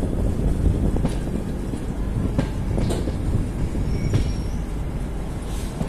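Train wheels rolling over rail joints and points, heard from the doorway of a moving passenger coach. There is a steady rumble with scattered clacks and a brief high wheel squeal about four seconds in.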